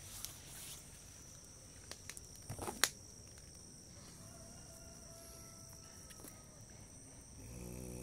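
Leaves rustling and a few small clicks, with one sharp click about three seconds in, as the leaves are pushed aside to reach the nest, over a steady high-pitched drone of insects.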